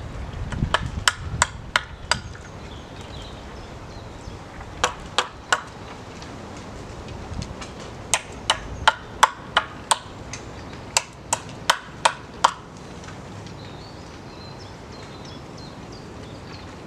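A blade chopping at a wooden stick: sharp strikes in four bursts of three to seven, about two to three strikes a second, with pauses between.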